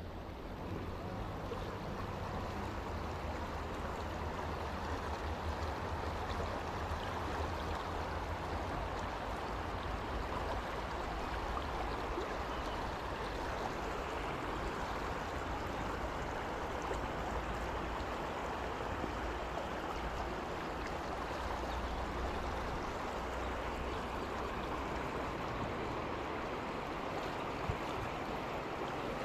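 Shallow river flowing over rocks and rapids: a steady rush of running water.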